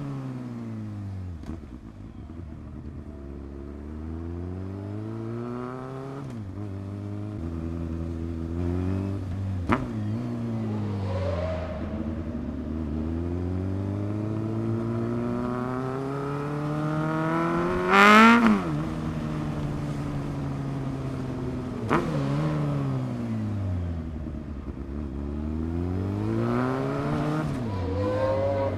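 Four-cylinder engine of a Honda CB600F Hornet motorcycle with an SC-Project exhaust, accelerating and easing off again and again, its note climbing through each gear and dropping back. About 18 seconds in there is one short, very loud rev that rises sharply and falls away. Sharp clicks come about 10 and 22 seconds in.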